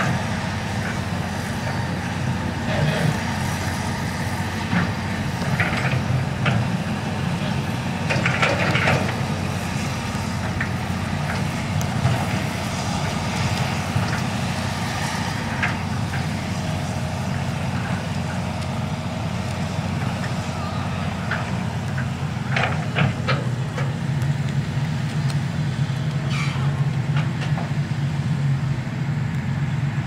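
Hitachi EX200 hydraulic excavator's diesel engine running steadily as the machine slews and works its boom, the engine sound growing louder and fuller in the last several seconds as the boom reaches out over the water.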